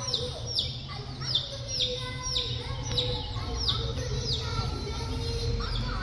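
Baby chicks peeping: a steady string of short cheeps that slide down in pitch, about two a second, over a low steady rumble.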